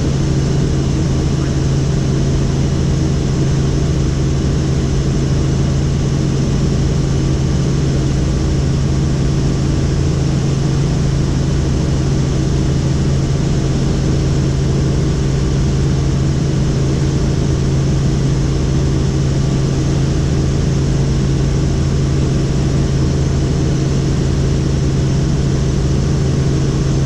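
Helicopter in flight: the steady drone of rotor and engine, a strong low hum holding one pitch, with fainter steady tones above it, unchanging throughout.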